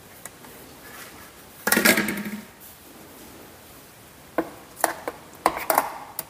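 A steel spoon clattering and clinking against the sides of a stainless-steel mixer-grinder jar as thick batter is stirred. There is one louder clatter about two seconds in, then several sharp clinks in quick succession over the last two seconds.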